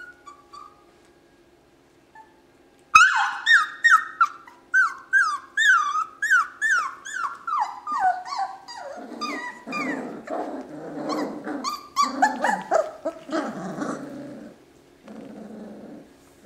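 German shorthaired pointer puppies yelping: from about three seconds in, a quick run of high, falling yips about two a second, turning into rougher puppy growls in rough play over toys.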